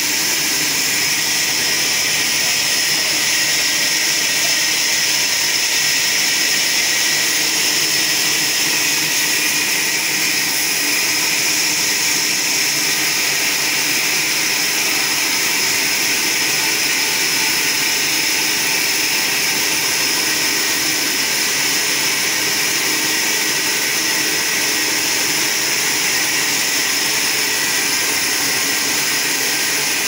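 Trolley band sawmill cutting lengthwise through a log: a steady, high-pitched hissing whine of the blade in the wood, with the mill's motor running underneath.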